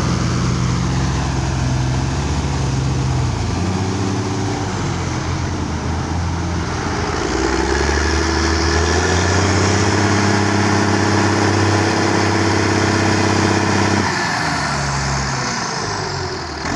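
Ursus tractor's diesel engine working hard as it tows a semi-truck stuck to its axles; the engine note climbs about seven seconds in, holds at high revs, then drops back near the end.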